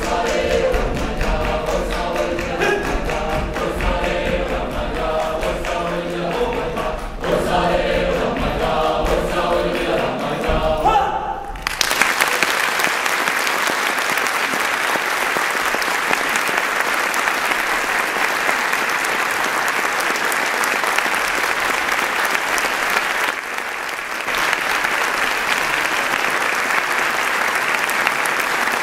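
A mixed choir sings a polyphonic folk song while clapping in time. The song stops suddenly about eleven seconds in, and a concert-hall audience breaks into steady applause that lasts to the end.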